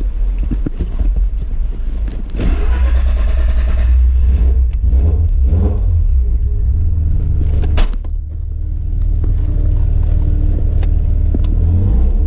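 Mazda RX-7 FD3S rotary engine running and revving, rising in loudness a couple of seconds in. A sharp click comes near eight seconds, and after it the engine runs on more steadily.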